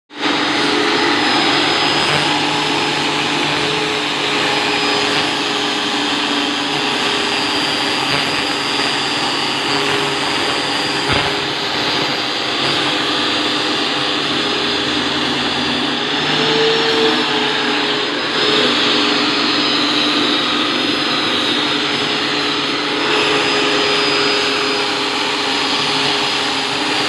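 CNC router spindle running steadily while milling a wooden guitar fretboard: a constant machine drone with a high steady tone over the noise of cutting, and one sharp click about eleven seconds in.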